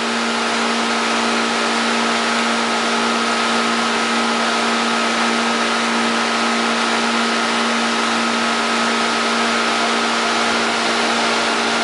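Steady, unchanging machine drone: an even rushing noise with a constant hum under it.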